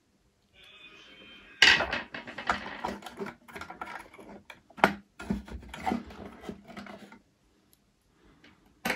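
Small metal parts of a tobacco filling machine's mechanism clicking, scraping and rattling as a metal lever plate is worked loose, lifted out and set down on a hard tabletop. The sharpest knock comes about a second and a half in. The clatter stops about seven seconds in, and one last click comes near the end.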